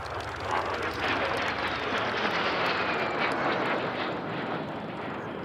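A de Havilland Vampire jet fighter's turbojet engine flying by. The rushing jet noise builds about a second in and fades toward the end, with a faint whine falling in pitch in the middle.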